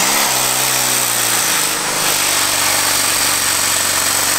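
Toyan four-stroke RC engine on a Nerf flywheel blaster starting up, its pitch rising as it catches, then running steadily.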